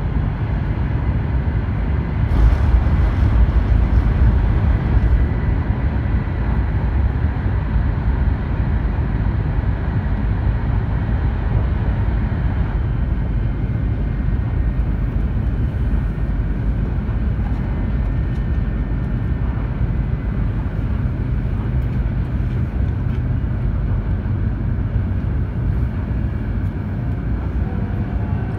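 Interior noise of an E2 series Shinkansen running at speed: a steady low rumble and rush, a little louder for a few seconds near the start. At the very end, the chime for the arrival announcement begins.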